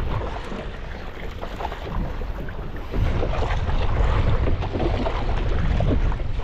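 Wind buffeting the microphone on a fishing boat at sea, with the rush and splash of water around the hull; it gets louder about three seconds in.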